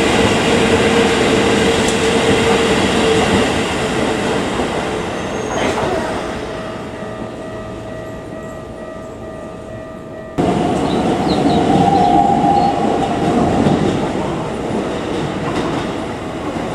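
Keikyu electric trains running on the rails: a loud passing train with wheel-and-rail noise and a steady whine. About six seconds in, a cut brings a quieter, more distant approaching train with faint steady tones. About ten seconds in, the sound jumps back to loud running noise with a steady whine as a 2100-series train comes in to the platform.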